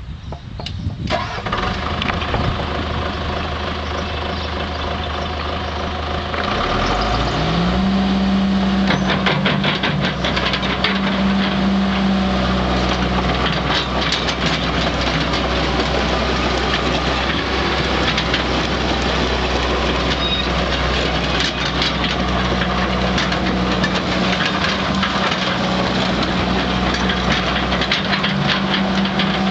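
John Deere 120 excavator's diesel engine starting and running low, then revved up about six seconds in and running steadily at higher speed.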